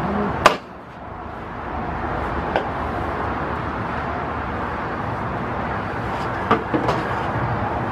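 A few sharp wooden knocks as a wooden hobby-horse on a trestle frame is mounted, over a steady noisy outdoor hiss. The loudest knock comes about half a second in, another follows a couple of seconds later, and two more come close together near the end.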